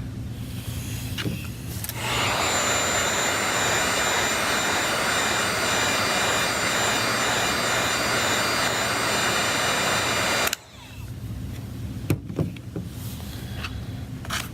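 Electric hot-air blower running steadily with a rushing sound and a high whine, switched on about two seconds in and cut off abruptly after about eight seconds, used to soften the screen adhesive. A few light clicks follow near the end.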